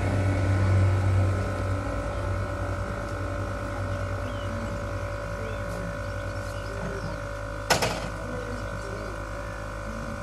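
Steady steam hiss with a high ringing tone from miniature steam locomotives, over a low hum. A single sharp metallic clank comes about three-quarters of the way through.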